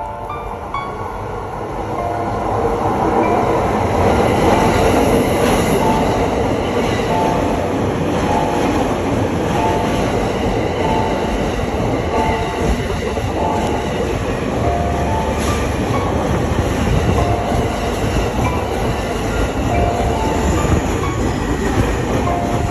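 Japanese level-crossing warning alarm ringing, a two-pitched electronic ding repeated about once a second, while a train runs through the crossing with rumbling wheel and rail noise that swells over the first few seconds and stays loud.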